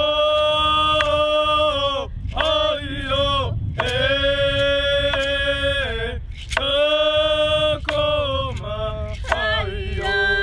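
Voices singing a chant in long held notes of a second or two each, with short breaks between, the later notes shorter and wavering.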